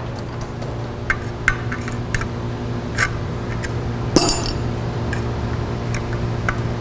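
Metal hand tools clinking against one another and the steel tool chest as they are picked through and handled: scattered sharp clinks, the loudest and most ringing about four seconds in, over a steady low hum.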